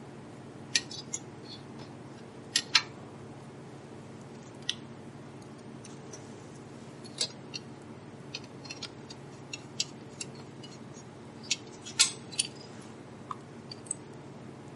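Scattered sharp metallic clicks and taps as a chart-drive clock is set into a metal recorder case and its screws are started with a screwdriver, the loudest click about twelve seconds in. A steady low hum runs underneath.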